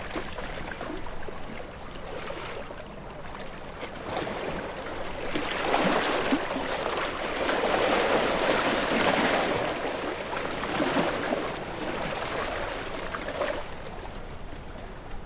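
Ocean waves washing against rocks: a steady wash of surf that swells into a louder surge from about five to ten seconds in, then eases back, with a short splash near the end.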